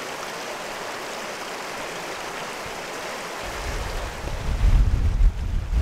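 River water rushing steadily over a riffle. About three and a half seconds in, gusty wind starts buffeting the microphone with an uneven low rumble that grows louder.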